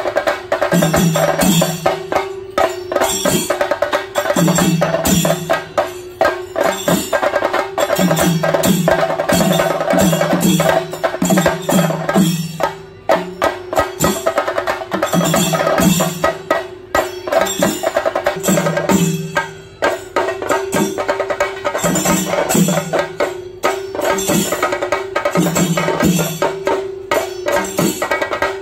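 Chenda drums beaten rapidly with sticks in a dense, continuous rhythm, with recurring deeper pitched notes under the fast strokes.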